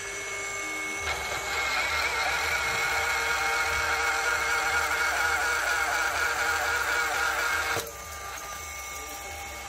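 DeWalt DCD1623 18V cordless magnetic drill running an annular cutter through a steel RSJ flange. The motor whines steadily, then turns louder and rougher as the cutter bites, about a second in. Near eight seconds it breaks through with a click and the motor spins on freely, more quietly.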